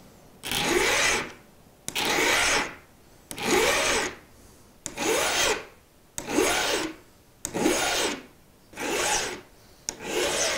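Hand file stroked across the point of a game-fishing hook propped against a bench: about eight even filing strokes, roughly one every second and a half, each rising and falling in pitch as the file starts flat and rolls outward, rounding and thinning the top of the hook.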